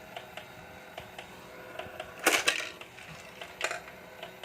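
Battery-powered Thomas and Friends Crane Ball toy set running: a faint steady motor hum with light regular ticking from its mechanism, and plastic balls clattering about two seconds in and again briefly near the end.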